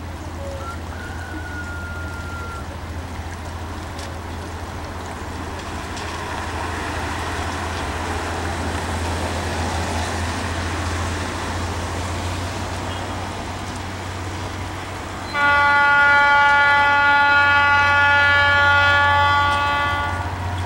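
Diesel freight locomotive's horn sounding one long blast of several tones together, starting about three-quarters of the way in and lasting some four and a half seconds, over a steady low rumble.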